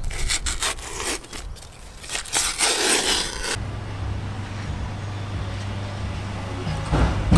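Casing being peeled by hand off a smoked sausage, a crinkly scraping and rustling with many small crackles. After about three and a half seconds it stops abruptly, giving way to a steady low hum.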